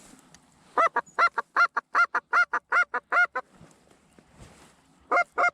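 Goose honks in a rapid, evenly spaced string of about a dozen, starting about a second in, then stopping; a second string starts near the end.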